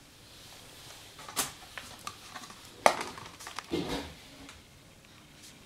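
Handling noise: a few sharp hard clicks and knocks, the loudest about three seconds in, with some rustling just after.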